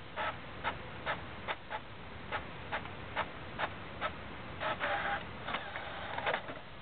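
Desktop printer printing and feeding paper out, clicking regularly a little over twice a second. A brief louder mechanical burst comes about five seconds in.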